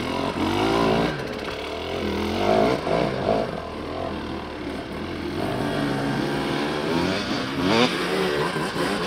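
Dirt bike engines revving up and down in short bursts of throttle as the bikes climb a rocky slope, with a quick sharp rev about three-quarters of the way through.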